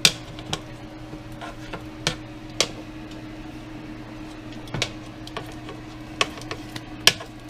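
Metal tongs clacking against an air fryer basket as chicken thighs are turned over, about eight sharp clicks at uneven intervals, over a steady appliance hum.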